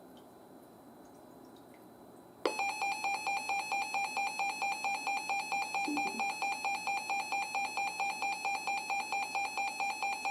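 Faint hiss, then about two and a half seconds in a weather alert radio's electronic alarm starts suddenly: a steady, rapid beeping at about four beeps a second, announcing a severe thunderstorm warning.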